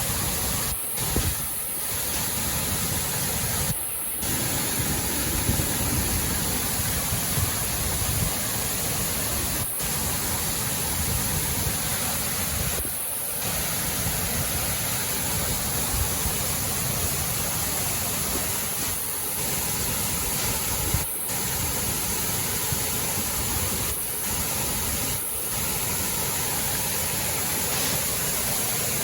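Steady rushing roar of a waterfall, with a few brief dropouts in the sound.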